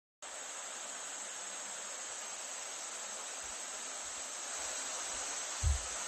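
Steady high-pitched chorus of insects in foliage, with one low thump near the end.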